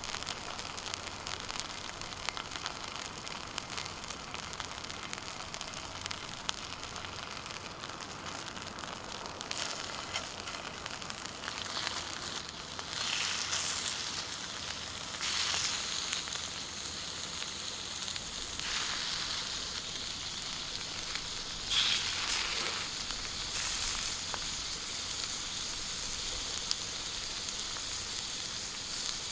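Food sizzling and frying in a skillet over a campfire, a steady crackling hiss that swells louder several times in the second half.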